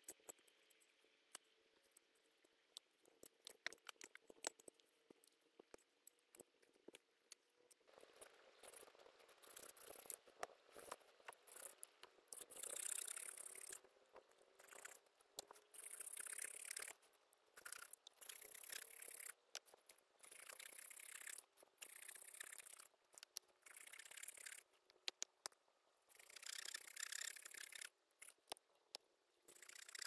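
Scattered light clicks and knocks, then a run of rough scraping strokes, each about a second long with short breaks between.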